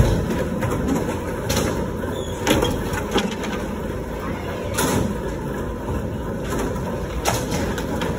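Skateboard wheels rolling over a concrete floor in a steady rumble, with several sharp clacks of a board striking.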